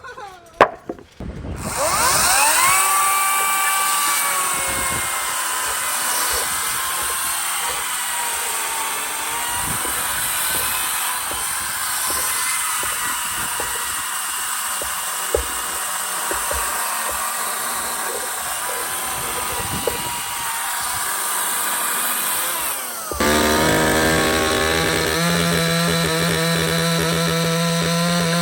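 Proyama 68cc two-stroke gas chainsaw revving up about a second in, then running at high speed as it cuts into wood. Near the end it changes suddenly to a steady, evenly pitched engine note.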